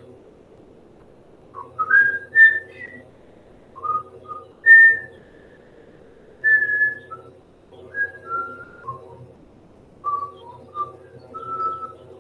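A person whistling a tune in short phrases of about a second each, with short pauses between them.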